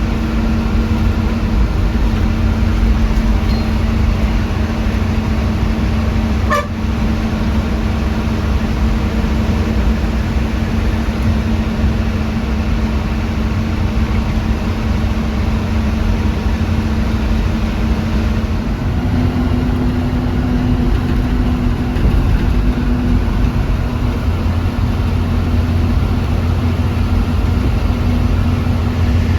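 A TNSTC bus running on the road, heard from inside: a steady low engine drone with road noise. The engine note rises slightly about two-thirds of the way through, and there is one brief sharp sound about six and a half seconds in.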